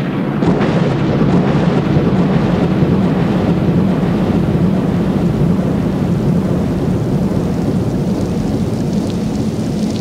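Small decorative waterfall splashing steadily into its rock pool: a loud, even rush of falling water.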